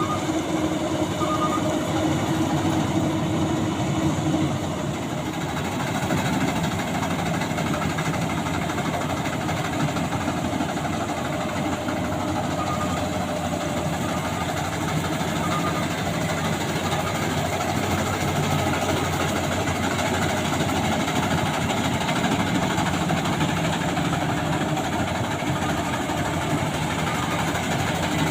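Maxxi Bimo 102 rice combine harvester running: steady engine and machinery noise without a break.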